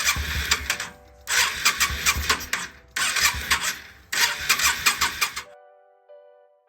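Yamaha V-Star 650's V-twin being cranked on the electric starter with the choke on, in four bursts of a second or so each, with a fast even chug that does not catch and run. Background music continues alone after about five and a half seconds.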